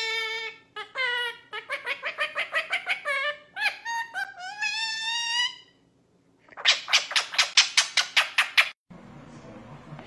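A woman and her yellow pet parrot making laughing sounds together: bursts of high, pitched laugh-like notes, some gliding upward, then after a short pause a loud fast run of about five notes a second. Near the end this gives way abruptly to a quiet steady room hum.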